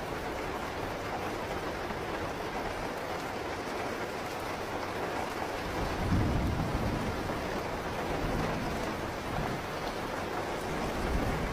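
Steady rain with a low rumble of thunder that swells about halfway through and rolls on more softly afterwards.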